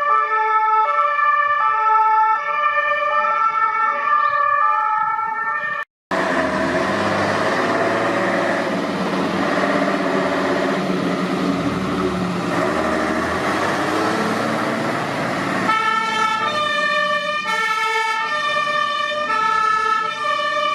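Fire engines' two-tone sirens (German Martinhorn) sounding in alternating high and low tones. A cut about 6 s in brings a louder, rougher stretch of vehicle engine and road noise with a wavering siren. The clean two-tone alternation returns about 16 s in.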